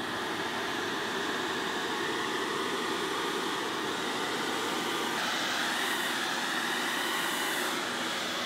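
Hair dryer running steadily, blowing fluid acrylic paint across a canvas; its sound brightens slightly about five seconds in.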